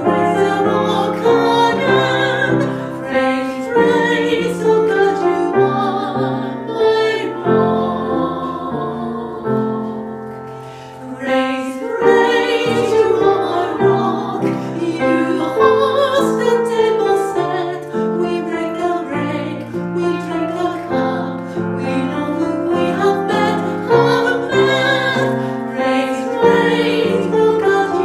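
A hymn sung by one woman's voice layered in several harmony parts over upright piano accompaniment, with a brief lull in level about eleven seconds in.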